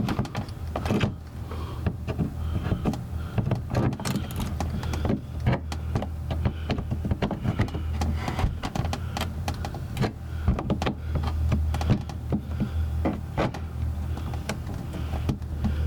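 Hand work under a car's rear bumper: scattered clicks, knocks and scrapes as a clip or part is pried and wiggled loose, over a steady low hum.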